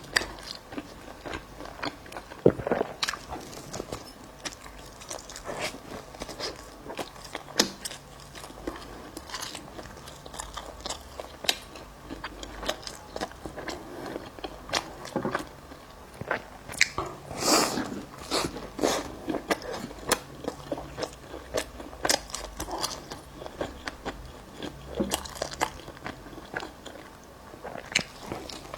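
Close-miked chewing and biting of bagel: irregular crisp crunches and wet chewing sounds that keep coming, loudest about two-thirds of the way through.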